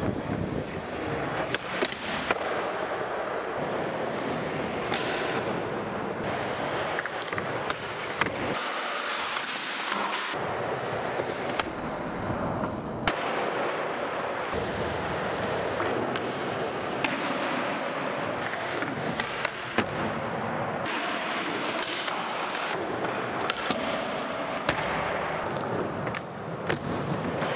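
Skateboard wheels rolling on a smooth skatepark floor, with many sharp cracks of the board popping and landing tricks, in a large indoor hall.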